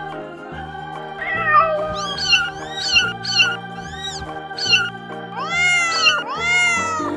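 Young kittens mewing: a string of short, high, arching mews from about a second in, then two longer mews near the end. Background music with a steady low pulse plays under them.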